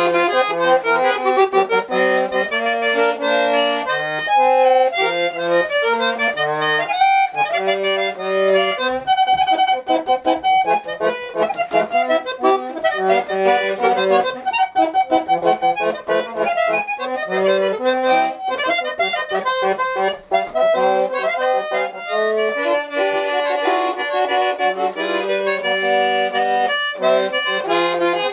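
A very small button accordion (a miniature bayan) played solo: a children's song tune in the right hand over bass notes and chords, with a run of fast repeated notes around the middle.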